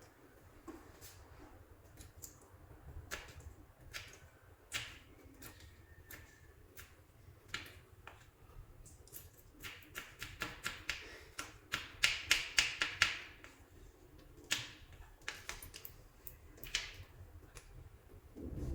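Soft clay being squished and kneaded by hand, making scattered sticky clicks and small pops. About halfway through comes a quick run of clicks, the loudest part.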